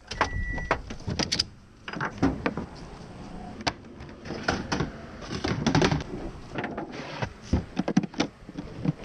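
Handling noise on a plastic kayak: irregular clicks, knocks and rubbing as hands work the hatch latches and move a cooler livewell with its hose. A brief high beep sounds at the very start.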